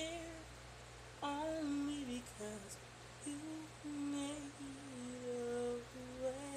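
A woman humming a slow gospel melody unaccompanied: a string of held notes that slide and step downward, with short breaths between them.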